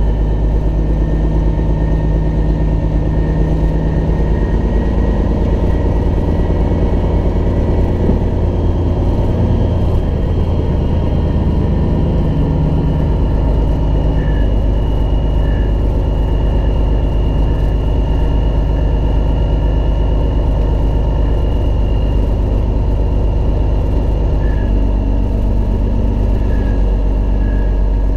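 Peterbilt 379 semi truck's diesel engine running as the truck rolls slowly, a steady low drone. Its pitch shifts about a third of the way in and again near the end.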